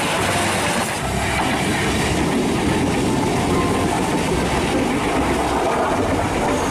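Passenger train carriages rolling past close by on the rails. About a second in, the sound cuts to an electric commuter train (KRL) rolling past close by with a steady rush of wheel and rail noise.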